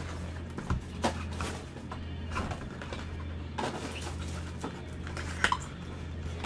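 Cardboard trading-card boxes handled and opened by gloved hands: a few sharp taps and clicks as a box is set down and its flap is opened, over a steady low hum.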